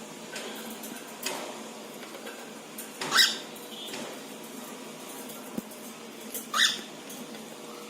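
Cockatiel calling: two short, loud calls about three and a half seconds apart, the second one rising in pitch.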